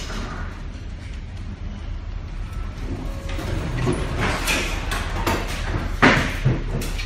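Wind and ship noise aboard a container ship in a storm, on a handheld phone: a steady low rumble, with rushing gusts from about four seconds in and the loudest gust about six seconds in.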